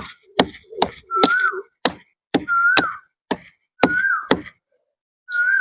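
Regular chopping strikes on babool (acacia) bark, about two a second and roughly nine in all, stopping shortly before the end, as the bark is hacked off the tree. A short high whistling tone rises and falls between the strikes.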